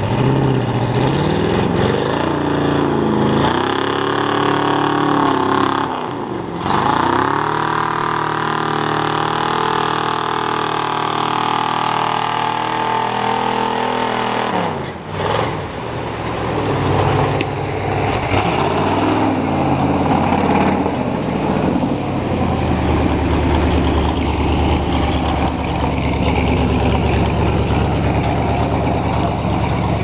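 Lifted 4x4 truck's engine revving hard in a mud hole: the revs climb and hold high for several seconds, drop away, climb and hold again for about eight seconds, then fall back to lower, uneven revving with short blips as the mud tyres churn.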